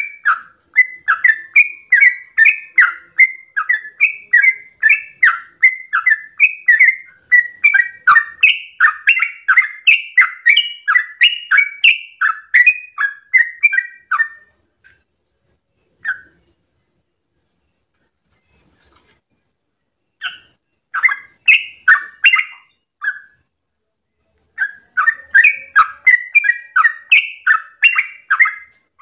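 Yellow-vented bulbul (trucukan) singing its rapid 'ropel' song: a fast run of short repeated notes, about two a second. About halfway through the run breaks off for several seconds, then returns in two more runs.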